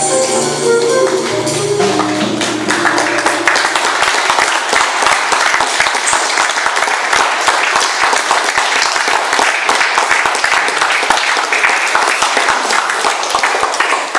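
Flute, acoustic guitars and drum kit play the last notes of a piece, and about two seconds in audience applause takes over and runs steadily to the end.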